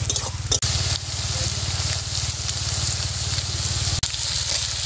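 Sliced onions sizzling as they fry in hot oil in a kadai, over a steady low hum. The sound breaks off for a moment about half a second in.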